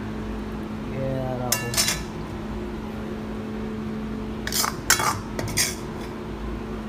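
A metal spoon scraping and clinking against the cooking pan and a ceramic plate as food is served. There are sharp clinks near two seconds in and a cluster about five seconds in, over a steady low hum.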